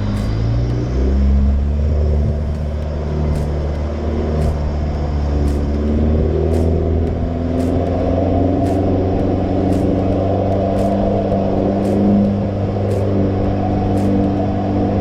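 A four-wheel-drive vehicle's engine running while driving, its pitch rising in the first second and then holding a steady drone, with faint ticks about once a second.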